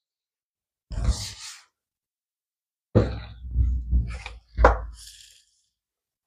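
Spatula working through a thick mixture in a plastic mixing bowl: a short scrape about a second in, then a run of low thumps and knocks of the bowl and spatula, with one sharper knock, for about two seconds from the third second.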